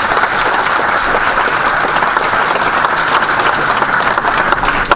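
Audience applauding steadily, cutting off suddenly at the end.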